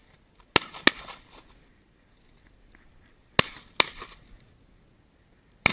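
Five shotgun shots, each a sharp crack: a quick pair about half a second in, another pair about three and a half seconds in, and a single shot at the very end.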